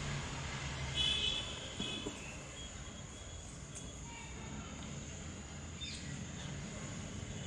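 A few short, high-pitched animal chirps about a second into the sound, with fainter ones after, over a steady low background rumble.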